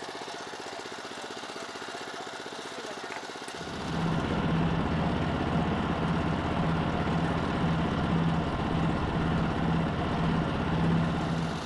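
Power Ox 240 two-wheel tractor's engine running steadily as it pulls a Spyder cultivator and torsion weeders through the soil. It becomes much louder about four seconds in.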